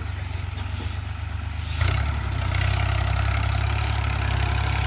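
Diesel engine of a Ghazi tractor running steadily under load as it pulls a plough through the field, a low drone that gets clearly louder about two seconds in, with a sharp click as it rises.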